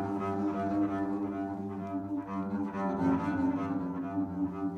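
Music of sustained low bowed-string tones, several notes sounding together, the notes changing about three seconds in.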